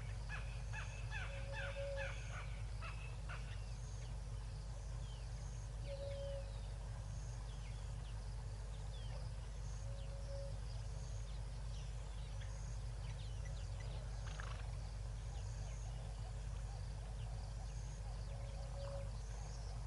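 Bird calls: a quick run of short, falling whistled calls in the first few seconds, then scattered chirps and a short low note repeated every four seconds or so, over a steady low hum.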